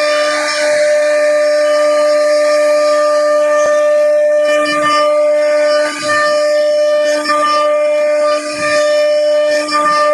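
CNC router spindle running with a steady high whine while carving wood, the pitch holding level with brief small dips in level.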